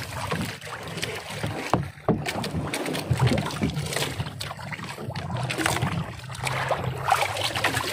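Sea water splashing and streaming along the hull and outrigger of a wooden outrigger boat, with scattered crackling splashes. A steady low engine hum runs beneath.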